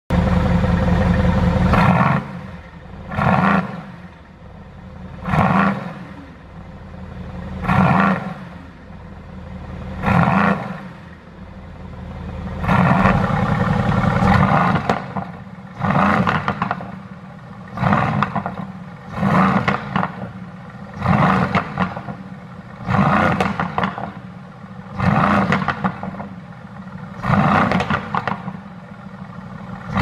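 Mercedes-AMG GT S twin-turbo V8 revved in short blips about every two seconds, with one longer rev near the middle. It pops and crackles on the overrun from a pop-and-crackle exhaust tune.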